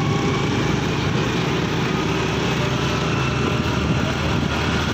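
Small motorcycle engine running steadily while riding, heard from the bike itself, with a steady rushing noise of wind and road over it.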